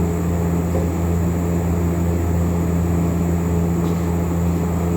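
A steady, loud low machine hum with no change in pitch or level.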